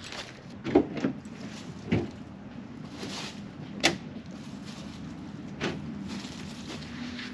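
Sharp knocks and clunks from the rear door of a pickup truck camper being opened and handled as someone steps up onto the back of the truck; the loudest comes about a second in, with about five in all. A low steady hum runs underneath.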